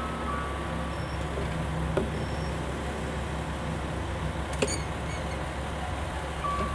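JR West KiHa 40-series diesel railcar standing at the platform with its engine idling: a steady low rumble. A sharp click comes about four and a half seconds in.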